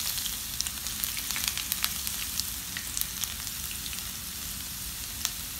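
Hot oil sizzling in a saucepan as freshly added julienned ginger fries with whole spices, with scattered sharp crackles and pops and one louder pop near the end.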